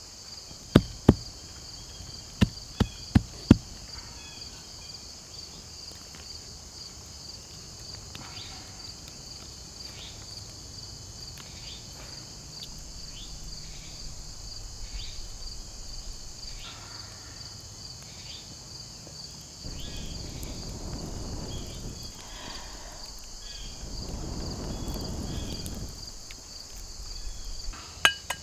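A steady, high, pulsing drone of insects, with a quick run of about six sharp clicks in the first few seconds and two more clicks near the end. Two longer stretches of low rushing noise come in the latter half.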